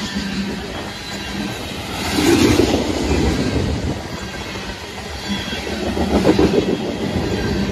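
Freight train tank cars rolling past close by: a steady rumble and clatter of steel wheels on the rails, swelling louder about two and six seconds in.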